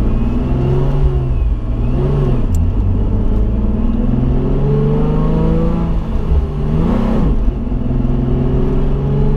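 Supercharged Nissan 350z V6 engine pulling under acceleration, its pitch climbing steadily. About seven seconds in the pitch drops and then climbs again, as at a gear change.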